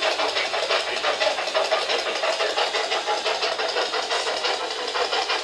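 Spirit box, a radio scanning rapidly through stations, giving a steady loud stream of choppy static.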